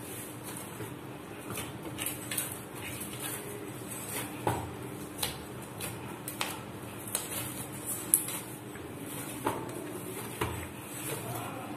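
Soft flour dough being kneaded by hand in a stainless-steel plate. Uneven light knocks and clinks come as the plate shifts and is pressed against the stone counter, over a faint steady hum.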